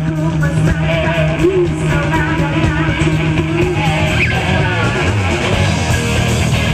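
A live rock band playing loud, with electric guitar and drums keeping a steady beat and a woman singing over them into a microphone.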